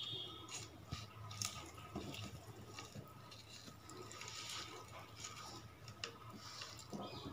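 Faint wet squishing and soft scattered clicks of fingers mashing roasted garoi (snakehead) fish with sliced onion and salt on a plate, over a faint steady hum.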